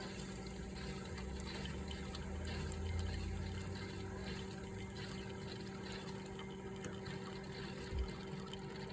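Hamilton Beach FlexBrew Trio coffee maker brewing: its water pump hums steadily while water runs and gurgles through. There is one brief low thump about eight seconds in.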